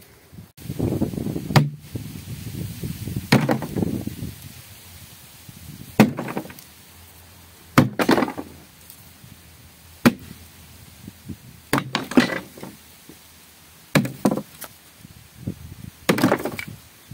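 Sledgehammer blows smashing an old bathtub to pieces: about a dozen heavy strikes, unevenly spaced a second or two apart and some in quick pairs, each with a crunching crack as the tub wall breaks.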